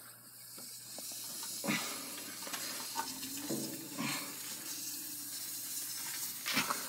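Steady hissing spray of water from a water-pressurised drain bladder (GT Water Products Drain King) in a sewer pipe, with a few brief knocks. Spray that can be heard means the bladder is not completely expanded in the pipe, here with its pressure lowered.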